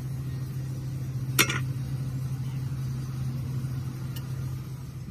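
Steady low mechanical hum, with one sharp clank about a second and a half in.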